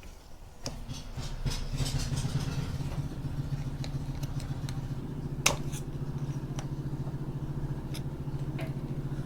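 Stihl FC91 edger's small engine coming up about a second in and then idling steadily, with a few sharp clicks over it.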